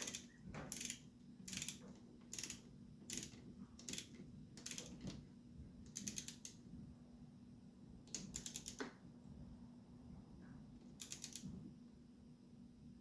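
A hand ratchet wrench clicking in short bursts as it is swung back between strokes while bolts are run down. The bursts come steadily, about one a second, for the first five seconds, then three more come further apart.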